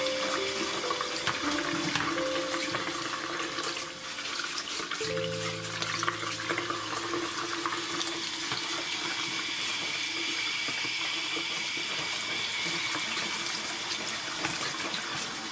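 Tap water running steadily into a sink and splashing as loquat leaves are rinsed by hand over a plastic colander, with soft background music underneath.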